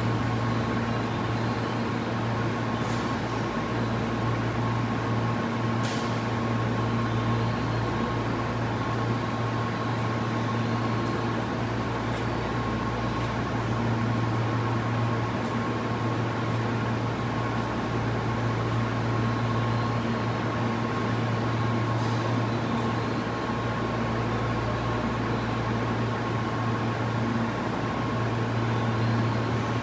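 Steady hum of a Tobu 50090 series commuter train car heard from inside the cabin: electrical equipment and air-conditioning noise with a constant high tone and a few faint clicks.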